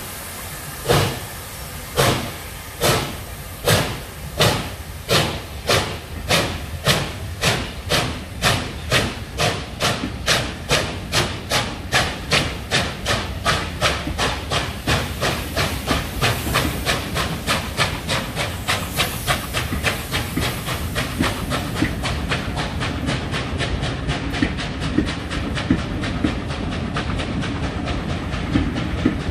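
USATC S160 2-8-0 steam locomotive pulling away with its train. The sharp exhaust beats start about a second apart and quicken steadily until they run together into a continuous rumble as the coaches roll past. Near the end come a few clicks of wheels over rail joints.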